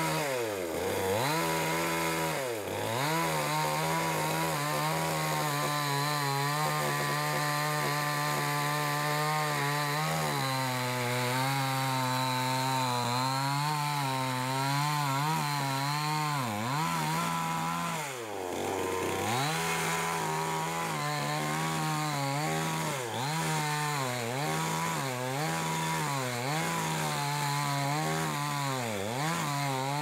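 Two-stroke petrol chainsaw cutting through a thick dead tree trunk at high revs, the engine note sagging and recovering again and again as the chain bites into the wood. About eighteen seconds in it drops briefly toward idle, then revs back up.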